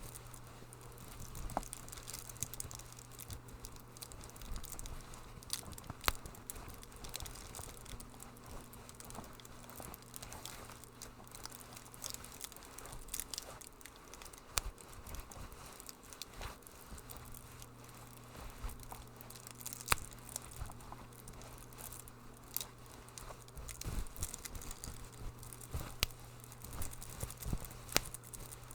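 Wood fire crackling in a fireplace: irregular sharp pops and snaps over a soft hiss, with a steady low hum underneath that drops out for a few seconds midway.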